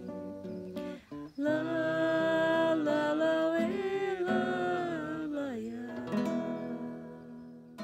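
Acoustic guitar with a voice singing long held notes that bend and slide, a Brazilian country song being sung. There is a short break about a second in, and the music tails off near the end.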